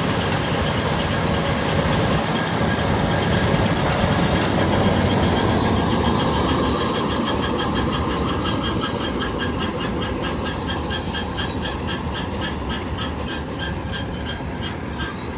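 Combine harvester running, with a rhythmic metallic squeak-click about four times a second coming in partway through from the cutter: the noise that made the operator stop the machine.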